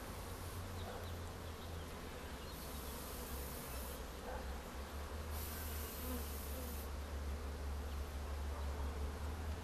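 Honey bees buzzing in a steady hum around an open swarm box. Twice a soft hiss rises over it for a second or so.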